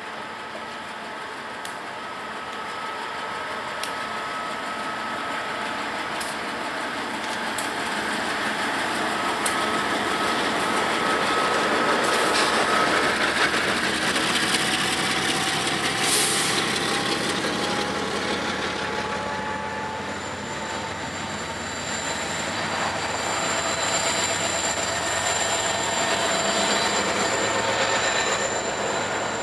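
Freight train's diesel locomotives passing close below, the sound building to its loudest about halfway through as they go by. Then the steady rumble and clatter of double-stack container cars on the rails, with a thin high wheel squeal in the last third.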